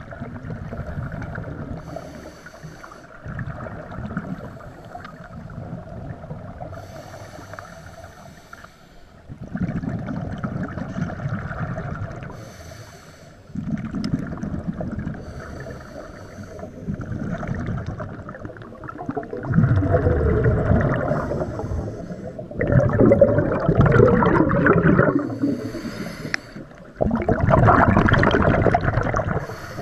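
Scuba regulator breathing heard underwater: each inhale through the regulator is followed by a rush of exhaled bubbles. The bubble bursts come about every four to five seconds and grow louder in the second half.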